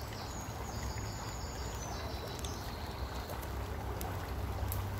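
Steady rushing of a small stream running nearby, with a low rumble under it and a few faint clicks.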